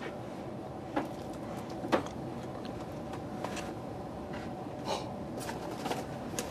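Steady room hum with a few soft knocks and bumps, about four in all, from someone handling books on library shelving; near the end a book is pulled off a shelf.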